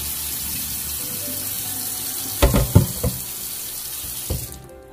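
Kitchen tap running into a stainless steel sink as squid is rinsed and the water drained from a pot, with a few knocks about halfway through. The running water stops shortly before the end.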